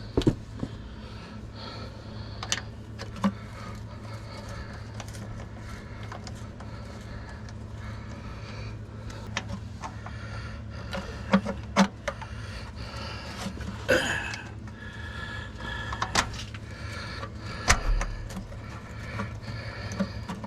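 Scattered metallic clicks, clinks and knocks of bolts and hand tools as a starter motor's mounting bolts are fitted and started by hand, over a steady low hum.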